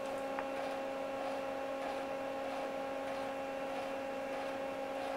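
Steady electrical hum from the welding rig after the arc has stopped, several fixed tones at once, with faint light ticks repeating about every two-thirds of a second.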